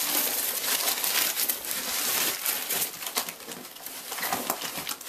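Newspaper and packing peanuts rustling and crinkling as items are dug out of a packed shipping box, a steady run of crackles.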